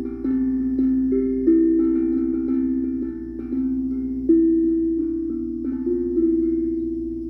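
Steel tongue drum played as a slow, unhurried string of single notes, about a dozen in all. Each note rings on for a long time and overlaps the notes after it, so two or three tones sound together.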